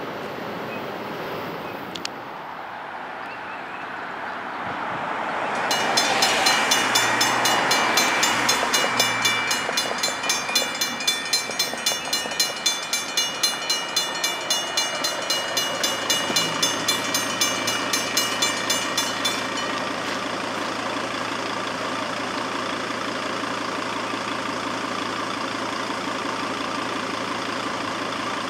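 Safetran mechanical railroad crossing bell ringing in rapid, even strokes for about fourteen seconds as the gates lower, then stopping suddenly once they are down. A rising rush of noise comes before the bell, and a steady low engine hum is left after it.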